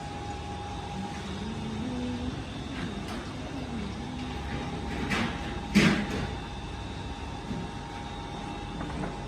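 Steady workshop hum with a constant tone, and two knocks about five and six seconds in, the second one louder.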